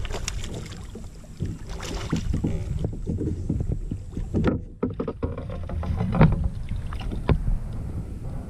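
Water splashing and sharp knocks around a kayak as a hooked largemouth bass is fought and brought alongside, over a steady low rumble of wind on the microphone.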